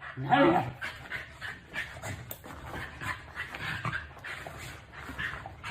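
A dog vocalising: a short call about half a second in, then a run of short, breathy sounds, roughly three a second.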